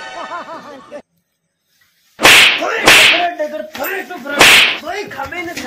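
Three loud whip-crack slap sound effects, the first two about half a second apart and the third about a second and a half later, with a man's shouting voice between them. Before them, a voice is heard for about a second, then it goes dead silent.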